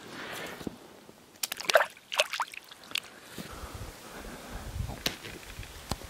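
Water sloshing and splashing in an ice-fishing hole as a caught brook trout is released by hand. There is a burst of sharp splashes about two seconds in and two more short splashes near the end.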